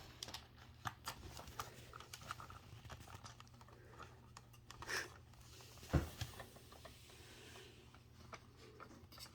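Faint clicks, taps and rustles of small plastic radio parts and wire being handled and fitted, with a soft thump about six seconds in.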